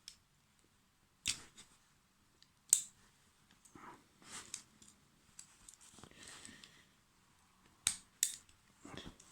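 Small metal parts of a Gerber multi-tool being handled while the pliers are swapped out: a handful of sharp clicks with some light scraping in between.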